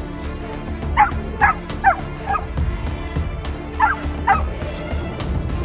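Labrador puppy yipping: four short, sharp yips about half a second apart, then two more a couple of seconds later, each dropping in pitch. Background music plays underneath.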